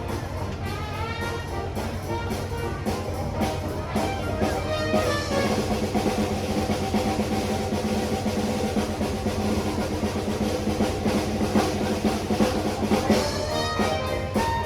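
Band music with drums and brass, the drums beating steadily; held notes fill out the sound about five seconds in.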